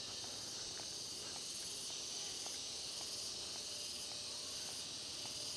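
Steady, high-pitched chorus of insects in the background, with faint scattered ticks.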